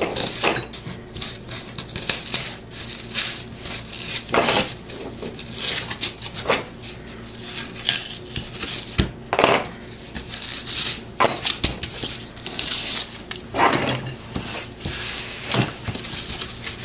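Corrugated cardboard being scraped and torn by hand and with a metal pin tool, the top paper layer ripped off to expose the ridges, in irregular short scratches and rips.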